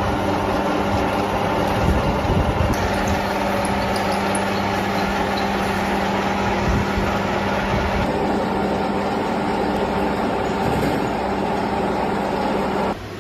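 A workshop machine running steadily, a constant hum over mechanical noise, cutting off suddenly near the end.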